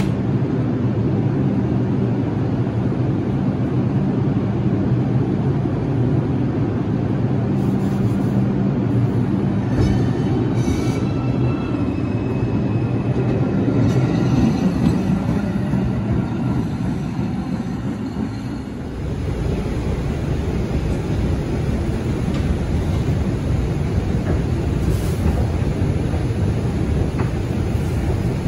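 R142 subway train at a platform with a steady motor and ventilation hum, then pulling out and running past with a motor whine of several tones. About two-thirds of the way in, this gives way to the lower running rumble of the train heard from inside a car.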